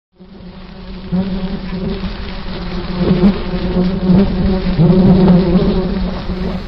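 A fly buzzing, swelling louder through the middle with its pitch dipping now and then as it circles close, then fading near the end.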